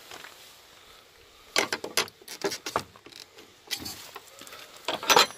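Wooden field gate and its metal latch being handled: irregular clacks and rattles, the loudest near the end.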